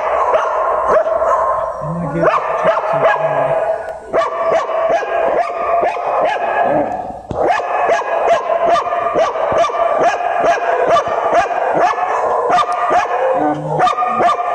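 Many dogs barking and yipping at once in a shelter's concrete kennel runs: a loud, continuous, overlapping din of barks that barely lets up, easing briefly twice.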